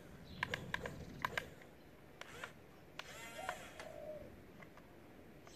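Quick sharp clicks from the RC excavator's geared arm mechanism as the boom and claw move, mostly in the first half. Past the middle a bird calls once.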